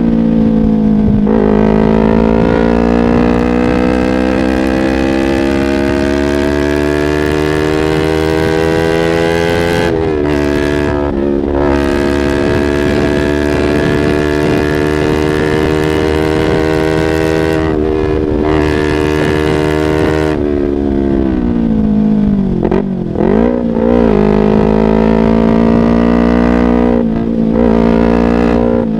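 Yamaha YZF-R25 250 cc parallel-twin engine through a Proliner aftermarket exhaust, under way. The engine note climbs slowly and drops at a gear change about ten seconds in. It climbs again, then dips and wavers with throttle changes a little after twenty seconds before rising once more.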